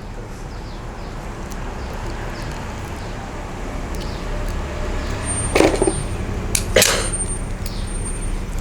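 Two sharp metallic clicks about a second apart, past the middle, from a crimping tool compressing an F-type connector onto coaxial cable. Under them is a steady low rumble that slowly grows louder.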